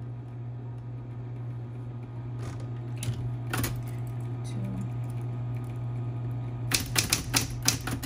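Smith-Corona Coronet Electric 12 electric typewriter with its motor humming steadily. A few separate clicks come early on, then a quick run of typebar strikes, about five a second, starts near the end.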